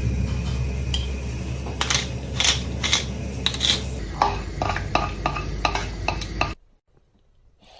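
Dishes and utensils clinking and knocking in quick irregular strikes over a steady low hum. Everything cuts off suddenly about six and a half seconds in.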